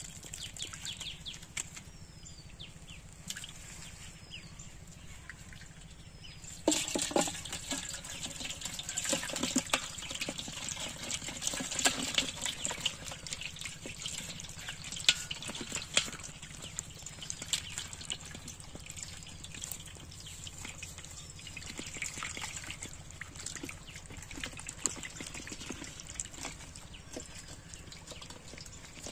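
Water splashing and dribbling, starting suddenly about seven seconds in and busiest for the next ten seconds before easing off; a few faint short falling chirps come before it.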